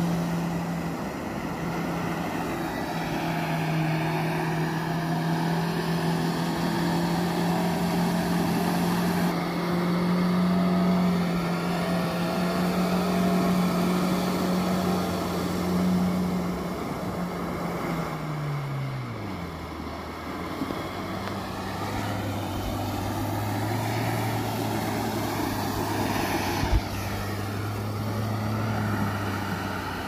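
Mahindra Thar 4x4's engine running at high revs as its wheels churn through a wet, muddy field; about 18 seconds in the revs fall away and it runs on at a lower, steady pitch.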